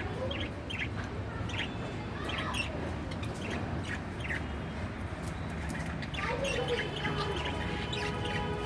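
Pet budgerigar chattering: short, high chirps scattered throughout, with a few lower warbling notes that slide in pitch.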